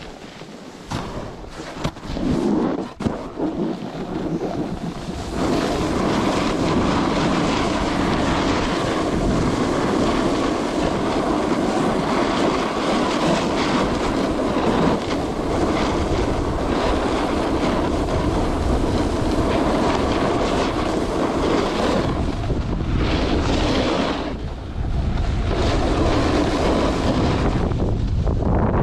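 Wind buffeting the microphone over the rush of a snowboard sliding and scraping across snow during a downhill run. It is uneven for the first few seconds, then a steady loud rush, with a brief lull near the end.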